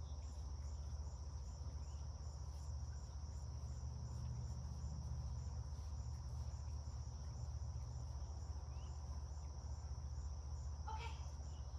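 Crickets trilling steadily in a high, unbroken chorus, over a steady low rumble.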